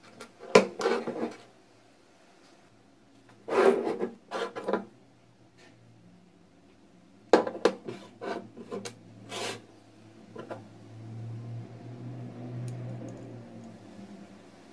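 Hard plastic and small metal parts of a WMF Perfect pressure cooker handle being handled and fitted together by hand: three short bursts of clicking, rubbing and scraping, then a single click. A faint low hum rises in the last few seconds.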